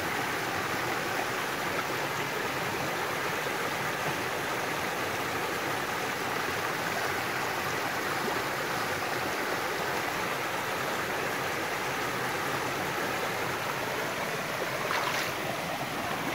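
Shallow mountain creek rushing steadily over rocks and small riffles and cascades.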